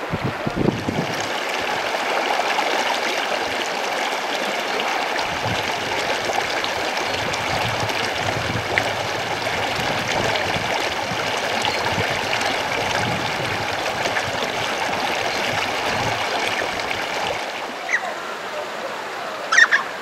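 A mountain stream running with a steady, even rush of water. There are a couple of brief sharp sounds near the end.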